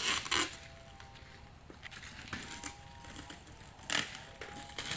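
Crunching, crackling handling noise from a cardboard carton being worked open by hand. It comes in two louder bursts, one at the start and one about four seconds in, with lighter rustling between.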